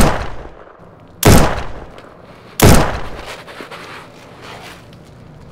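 Three gunshots about 1.3 seconds apart, each followed by a long fading echo.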